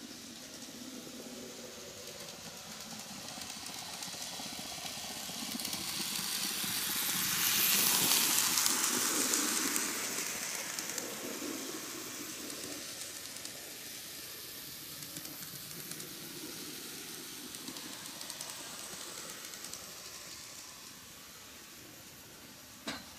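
KATO N gauge D51 498 steam locomotive model running on the track: the whirring hiss of its small motor and wheels on the rails swells as it passes close by about eight seconds in, then fades as it runs off along the curve. A single sharp click near the end.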